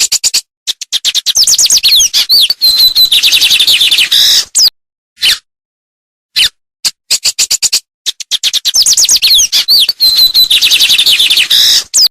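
Songbird singing a fast, loud phrase of rapid chirps and gliding high whistles. The phrase lasts about four seconds and is repeated almost identically, with a few short single notes in the gap between.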